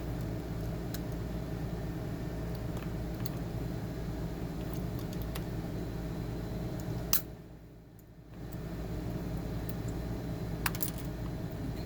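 Scattered light clicks and taps of a USB cable and its connector being handled, over a steady hum. About seven seconds in a sharp click comes and the background drops away for about a second, then returns; another sharp click comes near the end.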